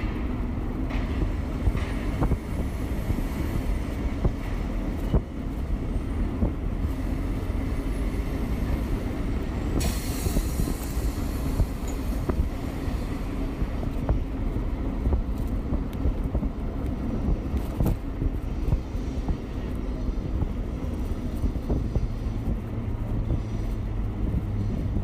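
City street traffic and low road rumble heard from a moving e-bike, with a brief hiss about ten seconds in.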